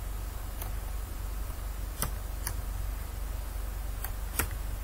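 A handful of sharp single clicks at a computer, a second or so apart, over a steady low hum.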